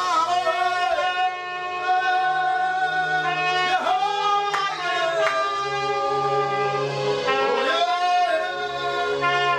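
Live music: a trumpet playing long held notes over an electronic keyboard with a steady bass line, and men's voices singing along.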